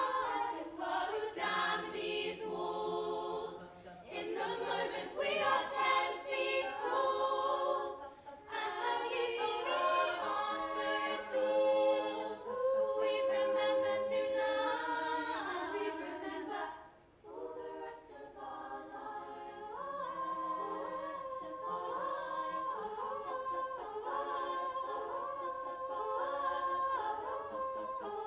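An all-female youth a cappella group sings unaccompanied in close multi-part harmony, holding sustained chords that shift every second or so. There is a brief dip in the singing about two-thirds of the way through.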